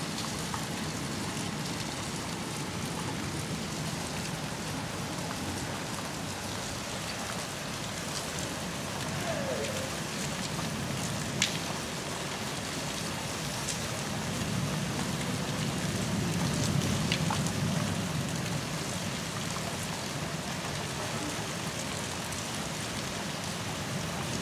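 Steady rain falling on wet pavement and standing floodwater. A single sharp click comes about halfway through, and a low rumble swells and fades in the second half.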